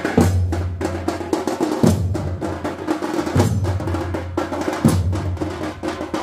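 Loud festival drumming: a deep drum stroke about every second and a half, each leaving a low boom, under a rapid clatter of sharper, lighter strokes.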